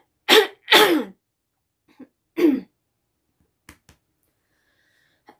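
A woman coughing: two harsh coughs in quick succession, then a third about two seconds later, with two faint clicks near the end.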